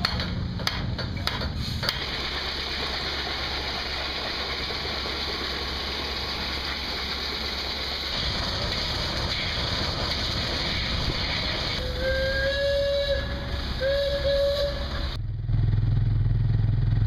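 Steam engine venting a loud steady hiss of steam, with two short blasts on its steam whistle near the end, each about a second long. A few sharp metal hammer strikes come at the very start, and after a sudden cut a low engine hum runs near the end.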